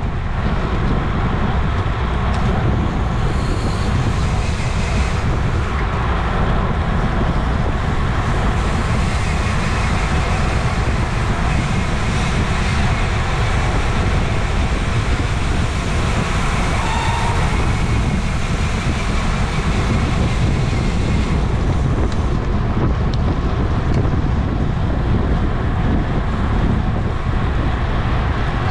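Steady, loud wind noise buffeting the microphone of a camera carried on a road bicycle at race speed.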